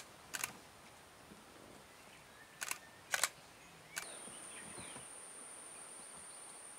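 Camera shutter clicks: one just after the start and two more close together around three seconds in. About four seconds in, a steady high-pitched insect drone starts and continues.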